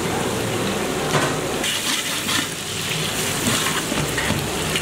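Vegetables frying in oil in a large metal pot, a steady sizzle that grows brighter about a second and a half in, with a long-handled spatula stirring and scraping against the pot.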